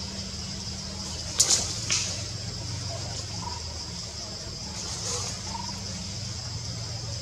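Outdoor ambience with a steady high-pitched buzz and a low hum, broken by sharp snaps about a second and a half in, again half a second later, and once more near five seconds, with a few faint short chirps between.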